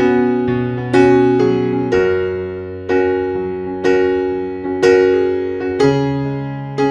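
Background music: gentle electric piano chords struck about once a second, each note fading before the next.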